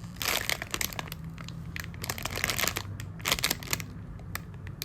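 Plastic packaging crinkling in short, irregular bursts as a packaged squishy toy is handled.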